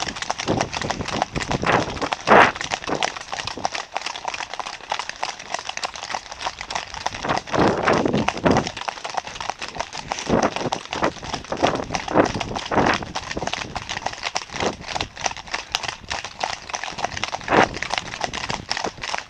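Many horses' hooves clip-clopping on a tarmac lane, including the close, loud hoofbeats of the grey pony being ridden, in a dense, irregular patter of clicks.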